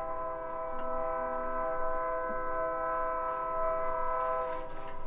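Train horn sounding one long, steady blast of several pitches at once, stopping near the end.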